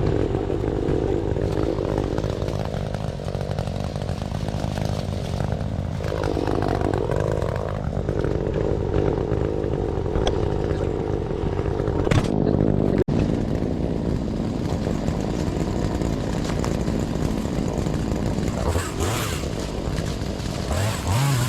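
Engine of land-clearing equipment running steadily, its pitch dipping briefly about six seconds in.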